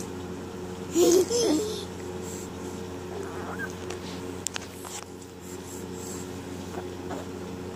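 A baby's coos and babbling: a pair of short, high vocal sounds about a second in, then a faint brief rising coo, with a steady low hum in the background.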